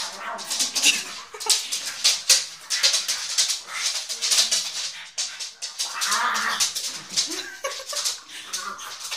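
Dogs, a basset artésien normand and a pug, busy at something, making rapid scratchy, crackling noises throughout, with short low grunting sounds in between.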